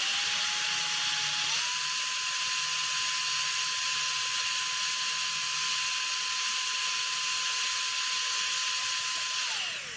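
Electric drill running at high speed to drive a small drill-powered pump that forces termiticide into a hole drilled in a concrete step. Its steady whine steps up slightly in pitch about a second and a half in, holds, then winds down and stops near the end.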